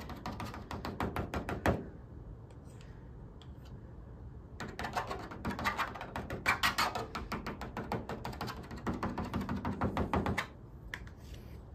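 Small spatula scraping and tapping thick screen-printing ink out of a plastic tub and onto the screen: quick runs of clicks and scrapes, a pause of about two and a half seconds, then a longer run of scraping and tapping.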